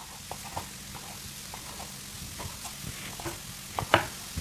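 Chef's knife knocking on an end-grain wooden cutting board while cutting cooked chicken breast into cubes: a string of short knocks, the loudest two near the end.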